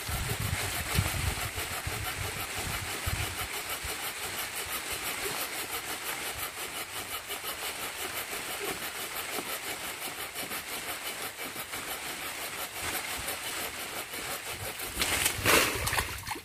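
Hand saw cutting through a storm-broken jackfruit branch, its teeth rasping in an even back-and-forth rhythm, with a louder burst of noise near the end.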